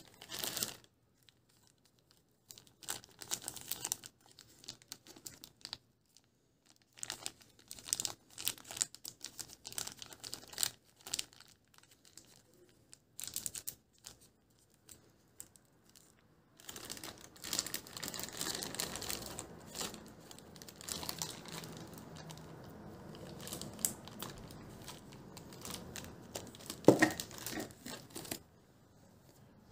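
Clear plastic bank bags holding coin rolls crinkling and rustling as they are rolled up and packed into a storage box, in irregular bursts that become denser in the second half, with one sharp click near the end.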